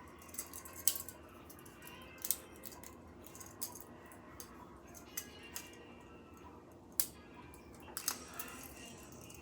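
Toy handcuffs being handled and fastened: scattered light clicks and rattles, with a few sharper clicks spread through.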